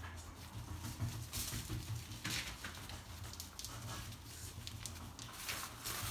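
A Maine Coon kitten and a ferret scampering and tussling on an artificial-grass mat: irregular patter and scuffs of paws and claws, with a few brief scratchy swishes, over a low steady hum.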